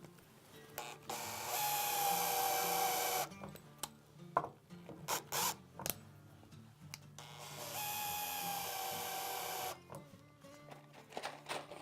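A power drill runs twice, about two seconds each time, with a steady whine, and a few clicks and knocks come between the two runs.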